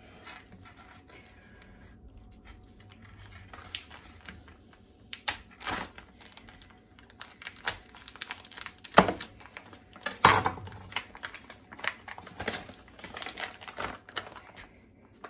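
Plastic or paper meat packaging crinkling and tearing as raw ribeye steaks are unwrapped, with a few sharp knocks and clicks from the handling.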